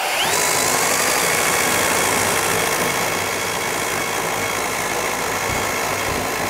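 Cordless Skilsaw worm-drive circular saw with a Prazi beam-cutter chainsaw attachment spinning up with a rising whine, then its chain running steadily as it cuts through a thick wooden beam. A shop vacuum runs alongside for dust extraction.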